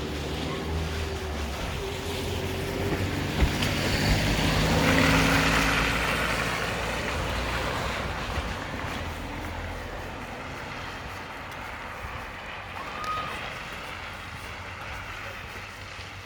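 A motor vehicle passing close by: its engine hum and tyre noise build to a peak about five seconds in, then fade away slowly.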